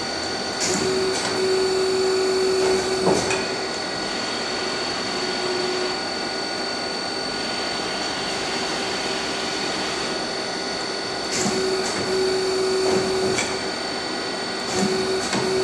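Lansing AB-11-15 G CNC lathe running: a steady machine drone with a steady high whine, and a lower hum that swells in and out three times. A few sharp clicks or knocks come and go.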